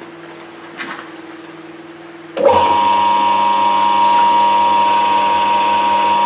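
Small metal lathe running with a steady hum; about two and a half seconds in, the cutting tool bites into the spinning die and a sudden loud, steady, high-pitched cutting squeal takes over.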